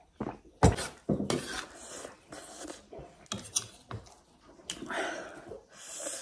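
Cutlery and dishes clattering: a spoon and fork clinking and knocking on a plate, with the loudest knock a little over half a second in.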